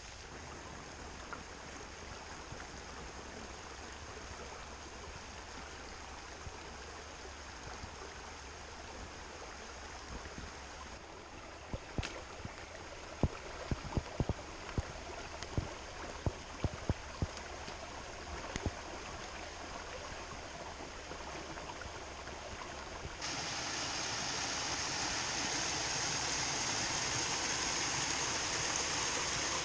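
Water running over rocks in a shallow forest stream, a steady rushing wash. Around the middle comes a string of sharp knocks, and for the last several seconds the rush is louder and fuller, from a small waterfall.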